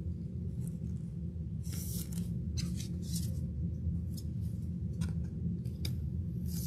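Trading cards and pack wrapper being handled: a string of short, irregular swishes and scrapes as cards slide against each other, the loudest about two seconds in, over a steady low hum.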